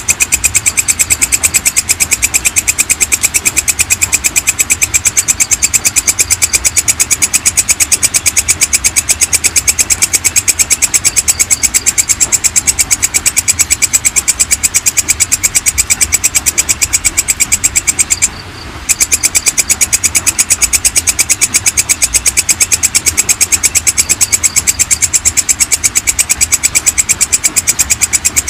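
Belalang kecek (walang kecek) insect calling: a loud, fast, even train of high-pitched chirps with a faint low hum underneath. The calling breaks off for about half a second some 18 seconds in, then carries on.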